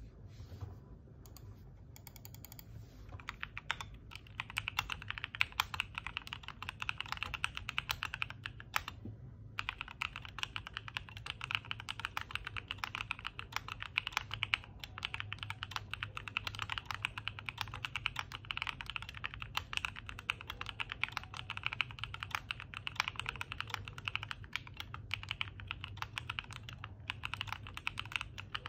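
Typing on a Black Diamond 75 mechanical keyboard with DR Rapid Ice linear switches: a few scattered keystrokes at first, then a fast, steady stream of key presses that breaks off briefly about nine seconds in.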